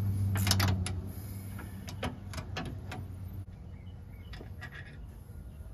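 Scattered metal clicks and taps from hand tools, a small socket ratchet among them, working on a fuel filter's hose clamps and mount, about six sharp clicks in the first three seconds. A steady low hum sits under them and fades after the first second.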